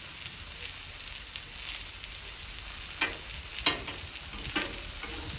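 Italian sausages and onions sizzling on a Blackstone flat-top griddle, a steady hiss, with three sharp clicks a little past halfway.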